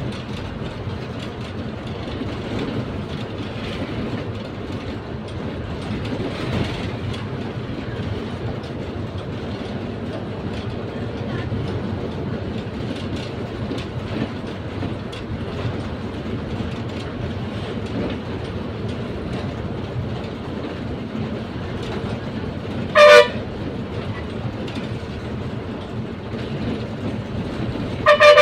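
Steady engine and road rumble heard from inside the cabin of an APSRTC Pallevelugu bus under way on a highway. A short horn blast sounds about two-thirds of the way through, and two quick blasts come right at the end; these are the loudest sounds.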